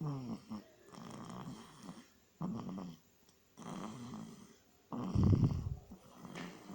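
Snoring: a run of rasping breaths about once a second, the loudest one a little past the middle.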